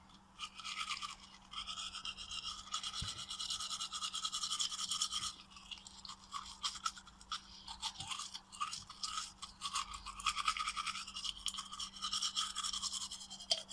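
Toothbrush scrubbing in quick back-and-forth brushing strokes. The strokes ease off briefly about five seconds in, then carry on.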